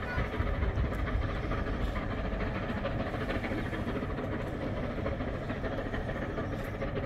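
Bulleid 'Merchant Navy' pacific steam locomotive 35028 'Clan Line' and its Pullman train, heard far off as a steady, low rumble.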